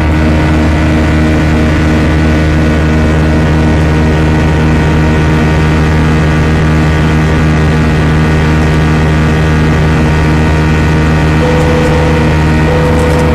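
Airbus A320 cabin in flight: the steady drone of the jet engines and rushing air, with several constant engine hums. A short steady tone comes in twice near the end.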